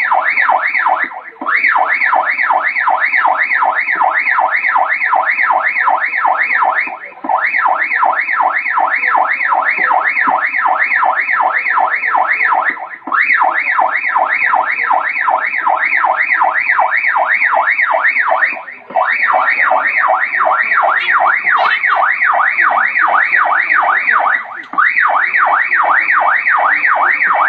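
Background music track made of a high electronic warbling tone that rises and falls about four times a second. It breaks off briefly about every six seconds, as if looped.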